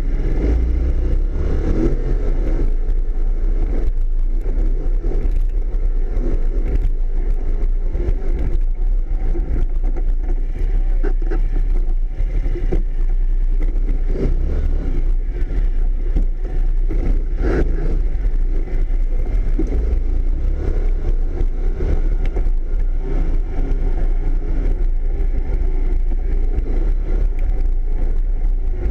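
Yamaha off-road vehicle's engine running steadily as it drives a rough dirt trail, with frequent short knocks and rattles over the bumps.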